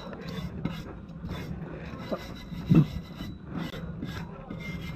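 Hand scrubbing of the rusty rear brake parts: repeated rasping strokes, about two or three a second, with a short rising squeak about halfway through.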